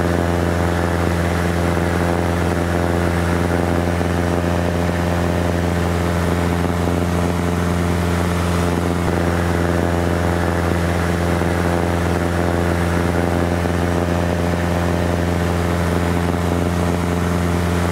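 Cessna 172 floatplane's piston engine and propeller in steady cruise, heard from inside the cabin as an even, unchanging drone.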